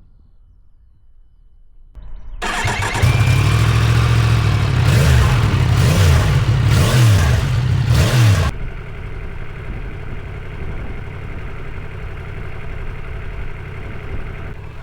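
Yamaha MT-10's crossplane inline-four engine starting up about two seconds in, revved with several throttle blips, then settling to a steady idle about eight and a half seconds in.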